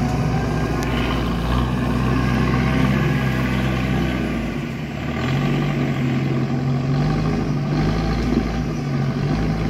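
Off-road 4x4 engine running hard under load, its revs rising and dropping in steps several times.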